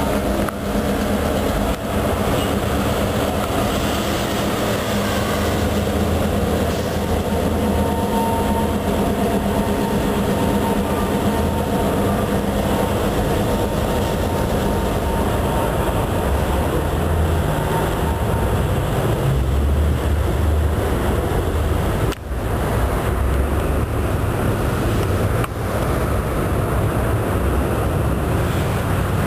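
Diesel-hauled freight train passing: a steady rumble of locomotives and cars rolling over the rails, with a thin steady whine through the first two-thirds.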